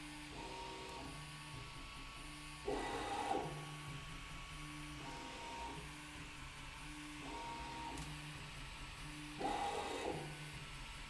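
Prusa i3 MK2 3D printer running, its stepper motors singing steady tones that jump to a new pitch every second or so as the print head and bed move. Two louder, rougher stretches come about three seconds and nine and a half seconds in.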